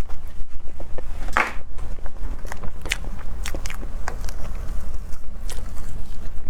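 Close-miked eating of a soft fruit dessert: chewing with many small wet mouth clicks, and one louder, longer sound about a second and a half in. A steady low hum runs underneath.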